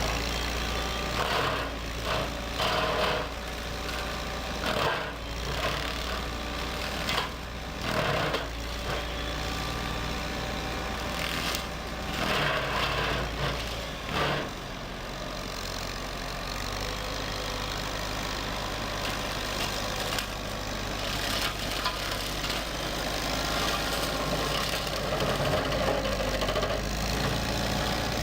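Brush-cutting machine's engine running steadily under load, with several short, loud cracks and crashes in the first half as it works through timber.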